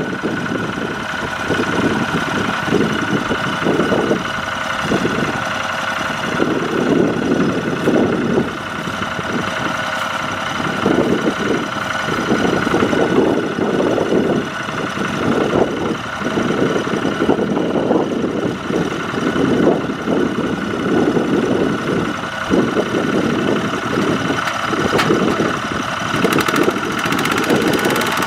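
Two-wheel walking tractor's single-cylinder diesel engine running hard and chugging, its level surging and easing every second or so as it strains to drag a loaded rice trailer through deep mud.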